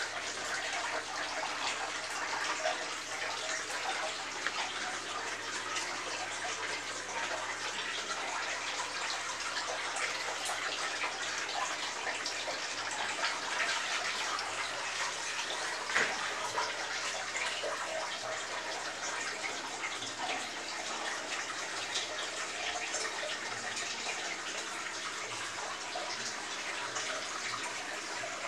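Aquarium aeration: air bubbling steadily through the water, with a faint low hum underneath and a single light tap about halfway through.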